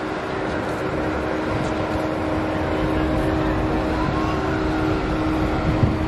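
Road traffic noise: a steady mix of engines and tyres, with a constant low hum running under it.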